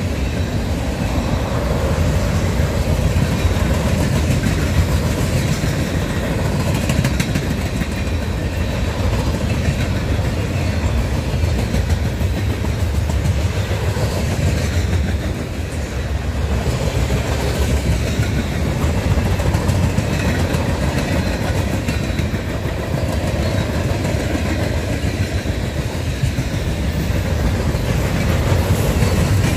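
Cars of a mixed manifest freight train rolling past steadily, their steel wheels running on the rails, a little quieter for a moment about halfway through.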